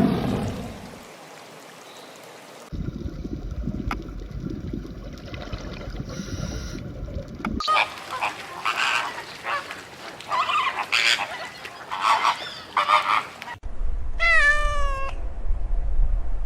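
A run of different animal calls in short back-to-back clips, each starting and stopping abruptly. The middle clip holds a series of repeated high calls, and near the end comes a single call that falls in pitch.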